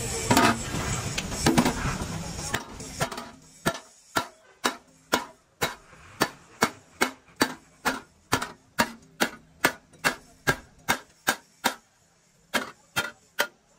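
A hand hammer striking a sheet-steel panel on a truck cab frame, in steady blows about two a second. The first few seconds are louder and noisier, with a couple of harder blows. Near the end there is a short pause, then a few more blows.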